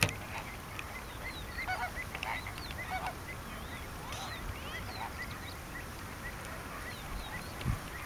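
A feeding flock of greater flamingos calling: many short, overlapping honking calls scattered throughout, with a low thump near the end.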